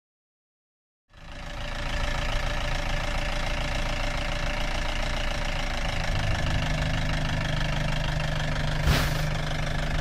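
Vintage army jeep engine running steadily, fading in from silence about a second in. A single sharp click comes near the end.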